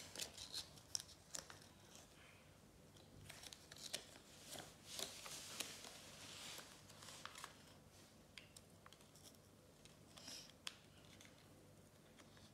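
Faint rustling and small ticks of a paper sticker's backing being peeled off by hand.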